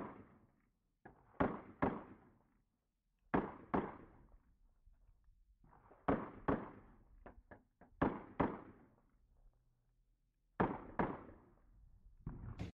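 Pistol in a Micro-Roni carbine chassis firing about a dozen shots, mostly in quick pairs about half a second apart, with short pauses between the pairs.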